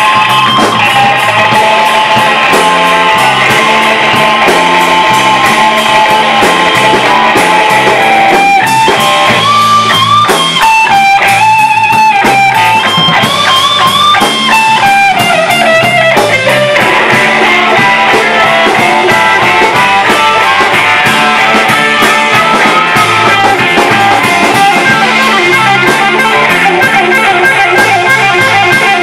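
A live blues band with a Fender Stratocaster electric guitar taking the lead, playing long held, bent notes over a steady bass line and drums. From about a third of the way in, the guitar climbs into a run of high bends, then slides back down.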